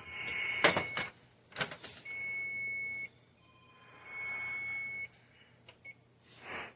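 Electronic beeper sounding several long steady beeps of about a second each, one of them lower and fainter, with a couple of sharp clicks and knocks near the start.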